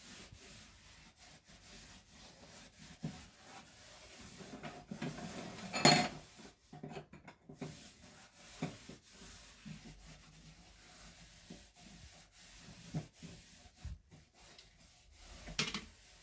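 A hand scrubbing and rubbing the top of a white metal two-burner gas stove, an uneven run of scraping strokes. There is a sharp, louder clatter about six seconds in and another near the end.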